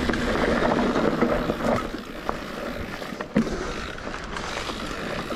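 Mountain bike ridden along a dirt trail: tyres rolling over dirt and stones with the bike rattling, and wind noise on the microphone. A few sharp knocks stand out, the loudest a little over three seconds in.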